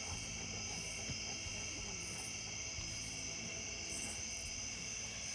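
Continuous chorus of crickets and other insects: a steady, high, unbroken trilling, with fainter higher buzzes coming and going over it.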